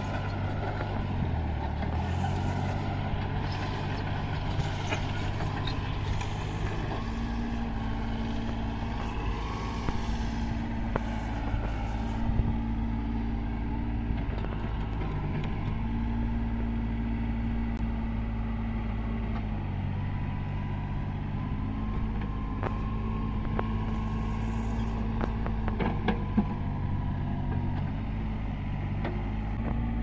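Yanmar YTB1400 mini excavator's three-cylinder Yanmar 3T84 diesel running under working load as the machine dozes dirt and then works its boom and bucket, the engine note dipping and recovering as load changes. A few sharp clanks stand out over the engine.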